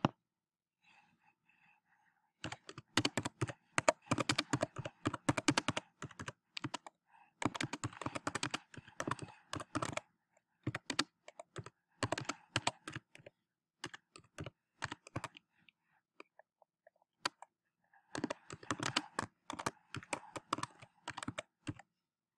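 Typing on a computer keyboard: fast runs of keystrokes, a stretch of slower scattered keystrokes in the middle, then another quick run near the end.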